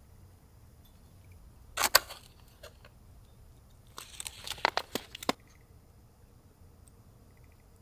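Objects being handled: a short rustle with a sharp knock about two seconds in, then a second spell of rustling and several sharp clicks from about four to five and a half seconds.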